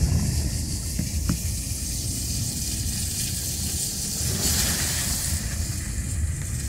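Car driving on a wet, muddy dirt road, heard from inside the cabin: a low engine and road rumble under a steady hiss of the tyres on the wet surface. The hiss grows louder for about a second just past the middle.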